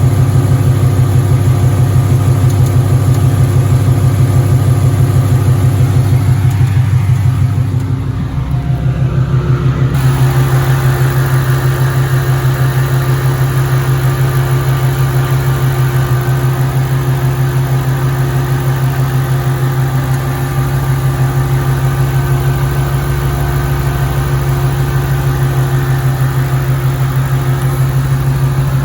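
Ford Mustang GT's 5.0 V8, fitted with headers, idling with a rapid, even ticking. This is the typewriter tick the owner has had since an oil change. The engine note shifts slightly about eight seconds in, then holds steady.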